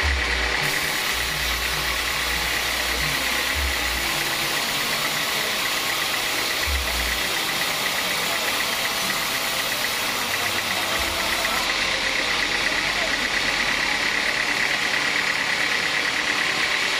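Band sawmill running, its blade cutting lengthwise through a squared teak beam: a steady high tone over continuous hiss.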